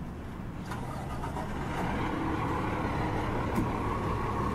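Street traffic with a car's engine running and growing louder as it draws near.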